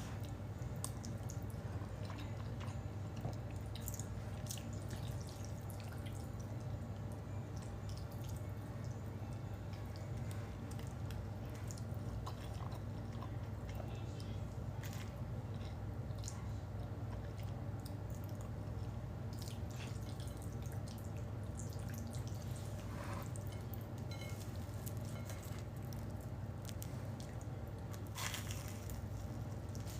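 Close-up eating of saucy spaghetti: wet squishing and slurping mouth sounds with scattered small clicks, over a steady low hum.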